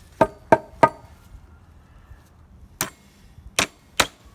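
Hammer driving a 16-penny nail into wood: three quick strikes with a brief metallic ring, a pause of about two seconds, then three more strikes.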